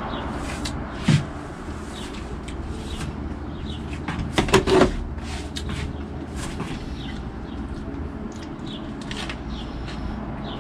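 Knocks and clacks of dishes and utensils being handled on a table while a burger is assembled: a single knock about a second in and three quick knocks around four and a half seconds in, over steady background noise.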